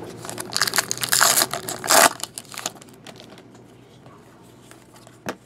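A foil trading-card pack crinkling and tearing open, with loud crackling rips from about half a second to two seconds in. Quieter handling of the cards follows, and there is a single sharp tap near the end.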